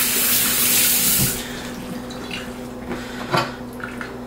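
Kitchen sink tap running in a steady stream, shut off about a second and a half in. After that come a few faint handling knocks.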